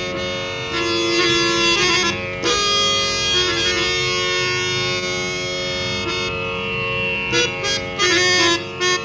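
Harmonium playing a Hindustani classical solo: long held reed notes over a steady drone, changing pitch now and then, with a few short, quick notes near the end.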